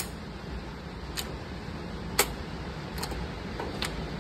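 About half a dozen light metallic clicks and knocks from handling a Sipahi bullpup 12-gauge shotgun at the bench, the sharpest about two seconds in, over a steady background hum.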